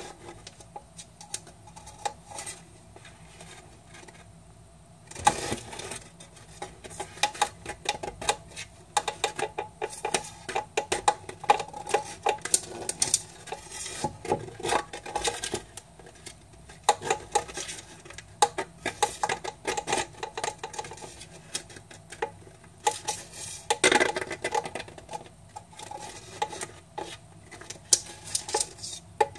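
Tortoise's claws clicking and scraping on a plastic hedgehog exercise wheel as it walks and turns the wheel. There are only a few faint ticks at first, then dense irregular clattering from about five seconds in.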